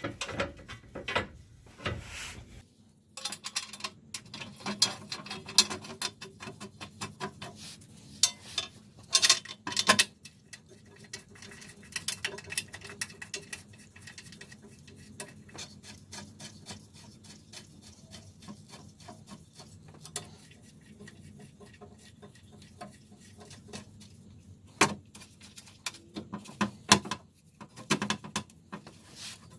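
Light metallic clicking, tapping and scraping of bolts and a wrench as a steel skid plate is bolted back onto the underside of a car, with a few sharper knocks.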